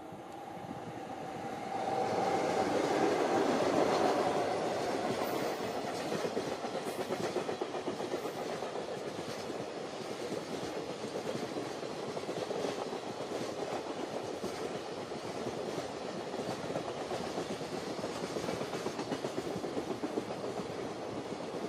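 Electric-locomotive-hauled container freight train passing close by: loudest for a few seconds after it arrives as the locomotive goes past, then a steady rumble and clatter of wagon wheels on the rails as the long string of container wagons rolls by.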